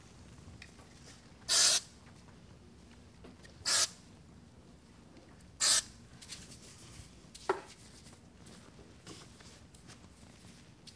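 A hand-held root-lift spray bottle sprayed three times, short hissing spritzes about two seconds apart, with a smaller click a couple of seconds after the last.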